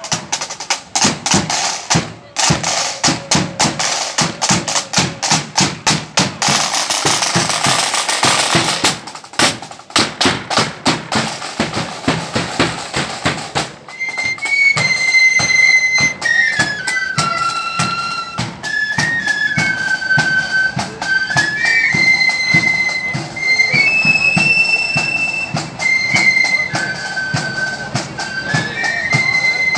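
Marching flute band playing: snare drums beat a rapid cadence on their own, then about halfway through a high flute melody comes in over the drumming.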